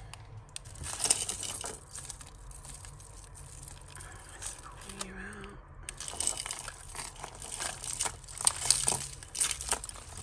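Costume jewellery handled in a heap: glass faux pearl strands, chains and metal pieces clicking and rattling against each other as a multi-strand necklace is pulled free, with some crinkling of plastic packaging. The clicking grows busier in the second half.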